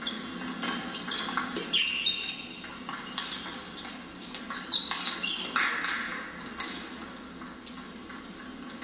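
Table tennis rally: the ball clicking off the bats and table, with short high squeaks of sports shoes on the hall floor, the squeaks loudest about two seconds in and again around five to six seconds.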